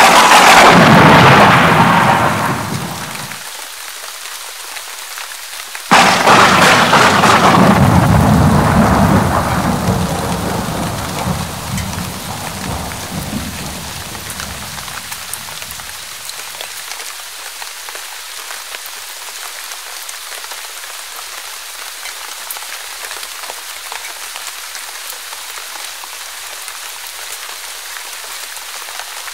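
Steady rain with two claps of thunder: a sudden crash right at the start that dies away over about three seconds, then a second crash about six seconds in that rumbles away over some ten seconds, leaving only the rain.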